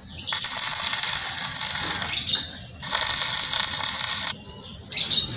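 Steel chassis rail scraping and grinding against brick paving as it is shifted by hand to line it up, in two long rasping stretches and a short one near the end.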